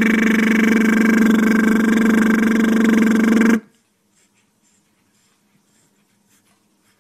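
A man's voice making a loud, steady buzzing drone held on one pitch, which cuts off suddenly about three and a half seconds in, followed by near silence.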